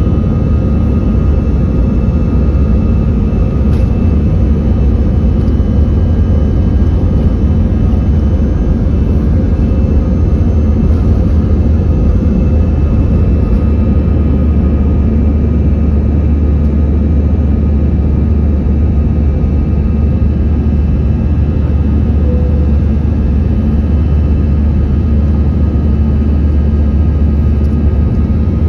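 Airbus A321 jet engines at takeoff thrust heard from inside the cabin: a loud, steady noise with deep rumble and a few steady whining tones over it.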